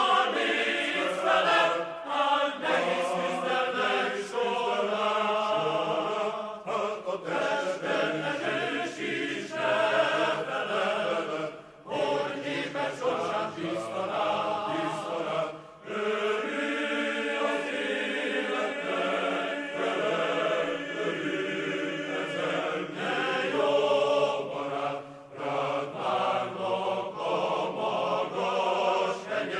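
Background music with choral singing.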